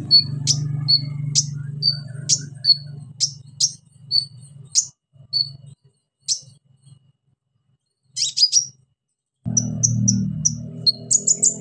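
Caged male kolibri ninja sunbird (konin) singing: sharp, high chirps repeated about twice a second, a pause with one short burst partway through, then a quick run of chirps near the end. A low steady hum lies underneath apart from the pause.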